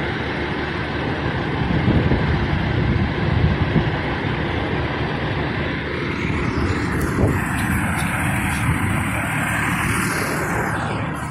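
Steady rumbling vehicle and road noise. Near the end a high sound sweeps downward.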